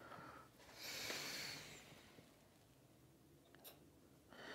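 Near silence, with one brief soft hiss about a second in and a single faint click near the end.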